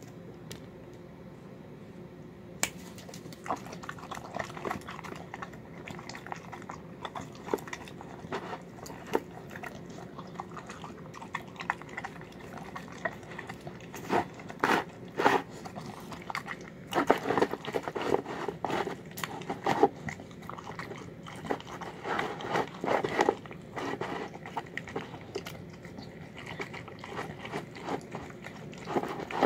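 A dog eating a meal of chicken, green beans and rice from a bowl: wet chewing, smacking and biting in irregular bursts. It starts about three seconds in and gets louder and busier from about halfway through.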